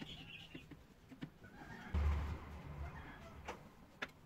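Light clicks and knocks of small wooden slingshot parts being handled and fitted together, with a dull low thump about two seconds in.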